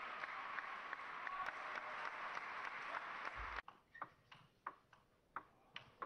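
Arena crowd applauding, broken off abruptly a little over three seconds in by a table tennis rally: the celluloid ball clicking sharply off the rackets and the table about three times a second.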